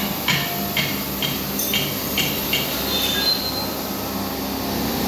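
Hammer blows on metal with a ringing clang, about two a second, stopping about two and a half seconds in, over a steady workshop hum.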